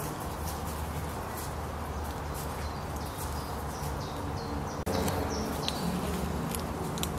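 Woodland ambience: birds chirping in short high notes over a steady outdoor background with a low rumble and scattered small crackles. The background changes abruptly about five seconds in.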